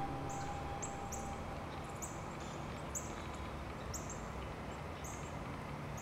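A small songbird giving short, high, thin call notes, repeated about twice a second, over a steady low hiss of background.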